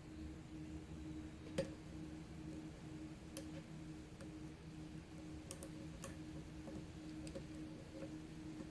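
Faint, irregular clicks of a lock pick probing and setting pins in a six-pin pin-tumbler lock, over a steady low hum.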